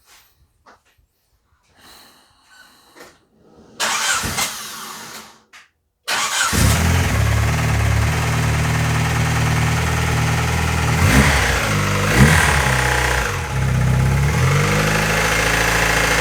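Turbocharged Honda D16Z6 1.6-litre SOHC four-cylinder is cranked, catches about six seconds in and runs at a fast idle, with brief blips of revs around eleven to thirteen seconds in. The engine has a noise that the owners place in the cylinder head, after calling it valve clatter.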